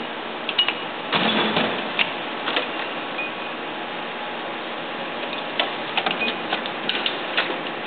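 Metal drawers of a Craftsman tool chest sliding open and shut, with clicks and knocks as they stop and tools shift inside them. A longer sliding rattle comes about a second in, and a quick run of clicks near the end.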